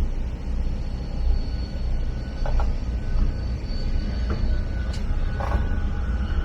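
Passenger train running along the rails, a steady low rumble with a faint steady high whine over it and two short brief sounds about two and a half and five and a half seconds in.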